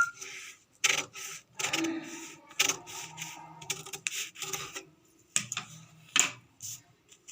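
Scissors cutting through material in irregular scraping strokes, with a short pause about five seconds in.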